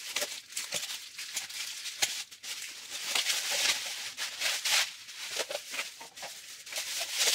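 Plastic packaging being cut open with scissors and pulled off, crinkling and rustling in irregular bursts.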